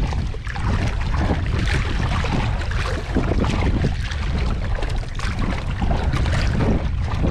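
Water splashing at the side of a small outrigger boat as hands work in the sea surface, over a steady rumble of wind on the microphone.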